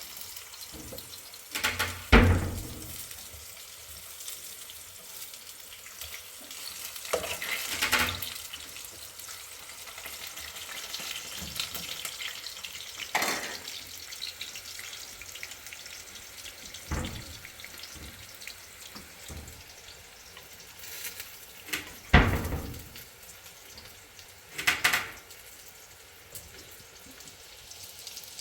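Kitchen work: a steady sizzling hiss with a handful of sharp clatters spread over several seconds. The loudest clatters come about two seconds in and about twenty-two seconds in.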